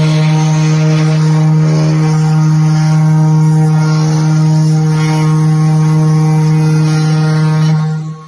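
3018 hobby CNC router's spindle motor running steadily while the bit engraves a design into a flat sheet: one constant tone with overtones and a hiss above it. The sound drops away abruptly near the end.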